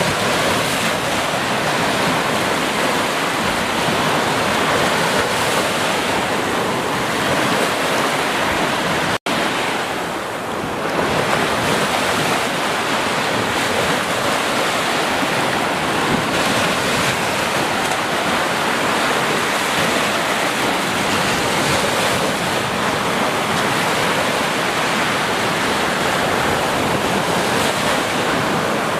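Small ocean waves breaking on a sandy beach and washing up the shore as foam, a steady rushing surf. The sound cuts out for an instant about nine seconds in.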